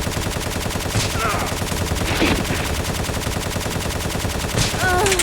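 Rapid, continuous automatic gunfire, many shots a second without a break.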